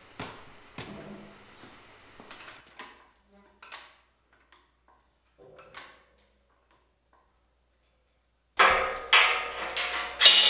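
Heavy steel welding-table outrigger knocking against the steel fixture table as it is fitted: a few faint knocks, then near the end four loud metallic clangs in quick succession, the last one ringing on.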